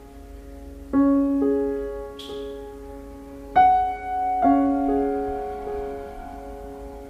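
Slow, soft piano background music: single notes and chords struck a second or so apart and left to ring and fade. A short high ring sounds about two seconds in.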